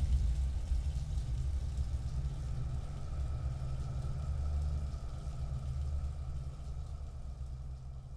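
Low, steady rumbling drone of the kind used as a film sound effect, slowly fading away.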